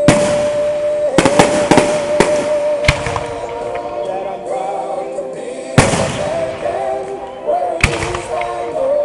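Aerial fireworks shells bursting: a quick cluster of bangs in the first three seconds, then single loud bangs near six and eight seconds. Music with long held notes plays underneath.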